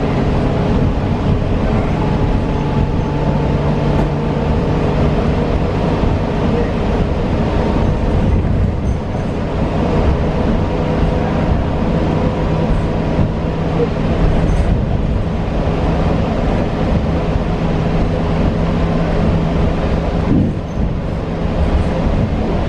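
Cabin sound of a 2022 New Flyer Xcelsior XE40 battery-electric city bus with a Siemens ELFA2 drive, riding along: steady road and tyre rumble with a few steady tones from the electric drive running through it.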